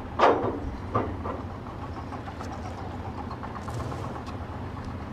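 Heavy diesel machinery engine idling steadily with a low rumble, with a couple of short knocks in the first second or so.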